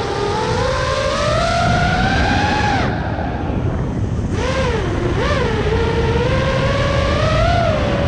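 FPV quadcopter's brushless motors whining, the pitch sliding up and down with the throttle. About three seconds in the throttle drops off for a second, then comes back in two quick blips before settling into a steady whine.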